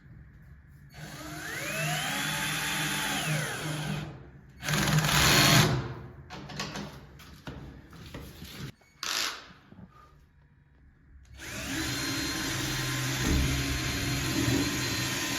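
Power drill running in several bursts: it speeds up, holds and winds down about a second in, gives a louder short burst around five seconds, a brief one near nine seconds, then runs steadily from about eleven seconds on.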